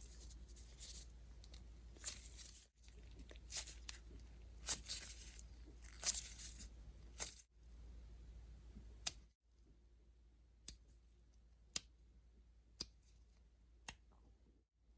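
NeeDoh Sploot Splat squishy toy being squeezed and handled, giving short runs of crackly, sticky squishing noise broken by sudden cuts. Near the end come four sharp clicks, about one a second.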